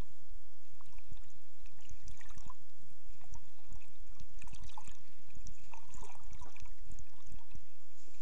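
Underwater sound through a submerged camera moving over a sandy seabed: dense, irregular low thumping and rumbling of water moving against the camera, with scattered faint crackles above it.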